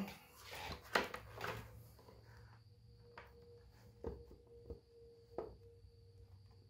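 A few light knocks and taps of hard printed plastic parts being handled and pressed together during gluing, spaced a second or more apart, over a faint steady hum.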